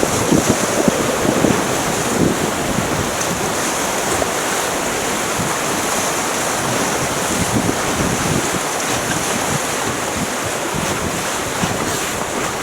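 Rushing river water from whitewater rapids, a steady loud rush, with wind buffeting the microphone in irregular low gusts.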